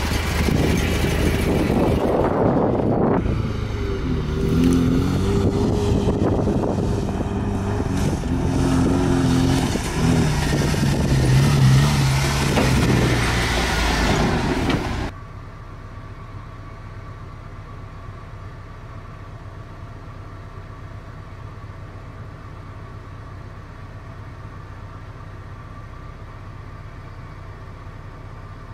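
Toyota pickup's 22RE four-cylinder engine pulling at crawling speed, its note rising and falling over a rushing noise. About halfway through, the sound cuts suddenly to a much quieter, steady engine hum.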